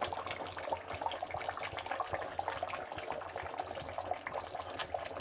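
Beef trotters in gravy bubbling in an aluminium pot on the hob: a steady patter of small pops and crackles.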